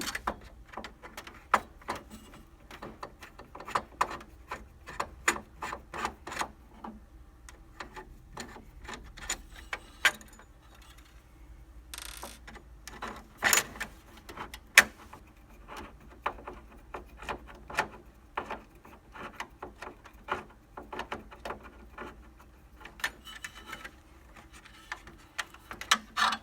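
Phillips screwdriver backing two screws out of a laser printer's metal cover plate: many sharp, irregular clicks and ticks of the driver tip and metal parts being handled, louder for a moment about halfway through.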